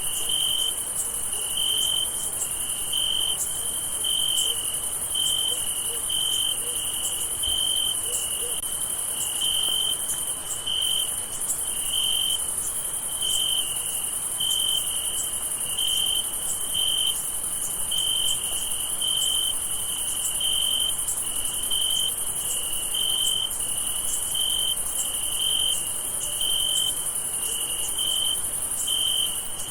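Summer night crickets chirping. One cricket gives steady, regular high chirps about one and a half times a second, over a continuous, higher-pitched trill of many insects.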